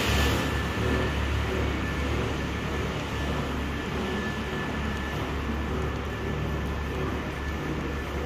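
Steady low rumble and hum of background noise in a large indoor underground concourse, such as ventilation, with a faint thin steady high tone running through it.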